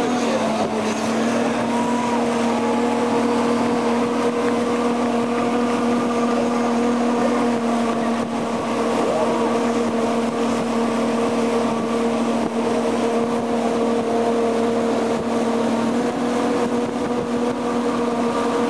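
Motorboat engine running steadily under way while towing, a constant drone that dips slightly in pitch once or twice.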